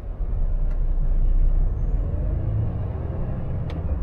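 Volvo FH460 truck's six-cylinder diesel engine heard from inside the cab, pulling away in town traffic. Its low rumble rises about a second in, with two faint clicks.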